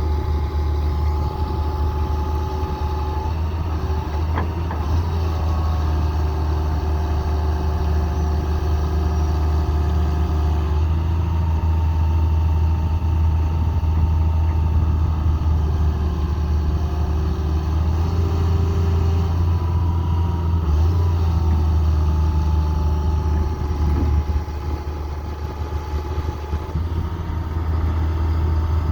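Hitachi Zaxis 200LC excavator's diesel engine running steadily, with a whine whose pitch shifts up and down several times and a short drop in level about three quarters of the way through.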